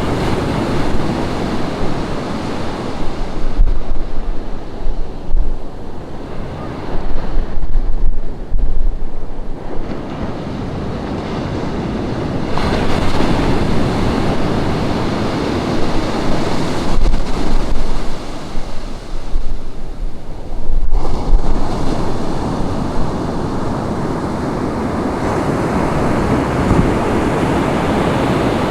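Ocean surf breaking and washing up a beach, swelling and falling back in long waves every several seconds. Wind gusts buffet the microphone with low rumbles at times.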